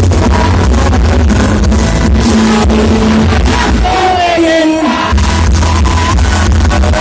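Loud dance music played through a large sound system, with heavy bass and a fast, even beat. About four seconds in, the bass drops out for roughly a second while a sliding, wavering vocal line sounds, then the bass returns.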